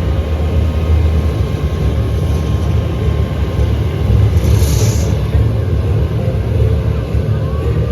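Bobcat excavators running, a steady, heavy low engine rumble, with a brief hiss about four and a half seconds in.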